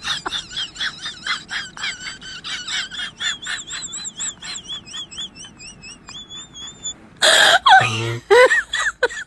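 High-pitched giggling in quick pulses, about four a second, thinning into wavering squeaky tones as it fades. About seven seconds in comes a loud sudden burst, then short voice-like cries.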